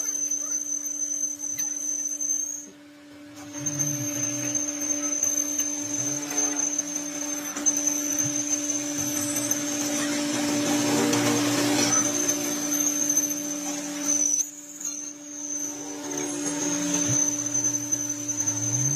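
A workshop machine's motor running with a steady hum and a thin high whine, and a rougher cutting or grinding noise that swells in the middle and eases off near the end.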